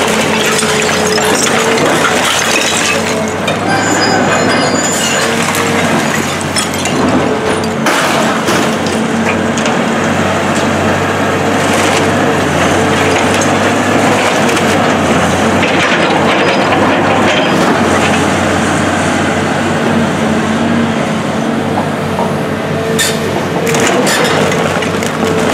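Caterpillar tracked excavator's diesel engine running steadily while its bucket scoops and dumps demolition debris: splintered wood and rubble crunching, cracking and clattering, with a few sharp knocks.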